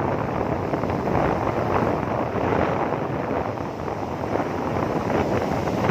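Steady wind rushing over the microphone, an even noise with no breaks.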